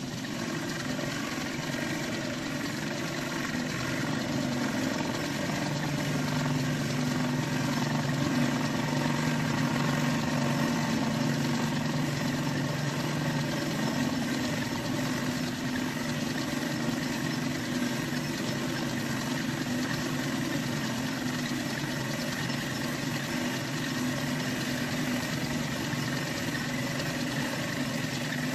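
Metal lathe running steadily in middle gear while a 45-degree turning tool takes a cut on the part. It is a continuous machine hum with a few steady tones, slightly louder for several seconds early on.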